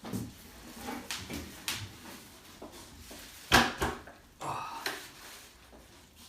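Handling of the scooter's packaging: a series of knocks and rustles, with one loud thump about three and a half seconds in.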